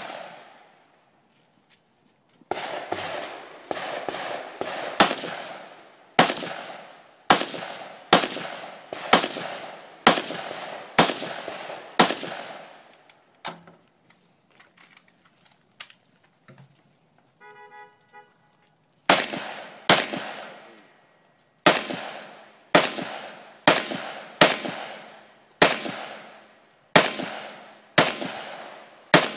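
AR-15 rifle fired in rapid strings of shots, each crack followed by an echoing tail. One string of about a dozen shots, a pause of several seconds near the middle, then another string of about a dozen.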